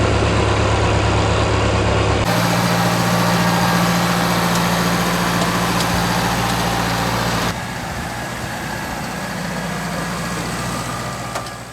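A heavy engine running steadily, likely a farm tractor working during cow feeding, with a low hum that shifts abruptly a couple of times and fades out near the end.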